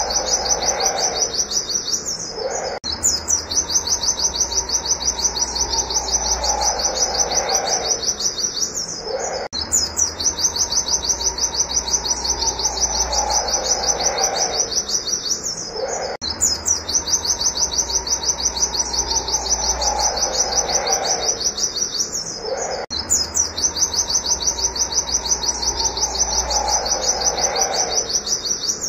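White-eye (pleci) singing its 'wit wit' shooting song: very fast, high repeated notes in long unbroken runs, each broken by a short pause about every seven seconds. A lower, falling call repeats underneath.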